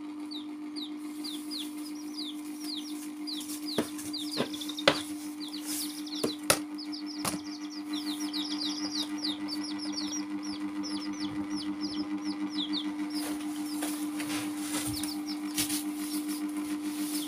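Domestic chicken chicks peeping rapidly in short falling chirps, several a second, which thin out near the end. A steady low hum runs underneath, and a few sharp taps come between about four and seven seconds in.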